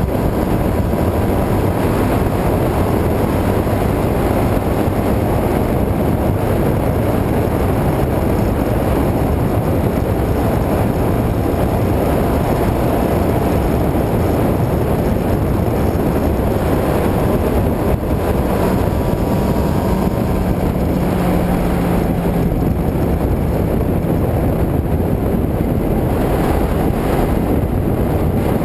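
Motorcycle riding at steady cruising speed: a continuous rush of wind on the bike-mounted action camera's microphone mixed with the engine and road noise.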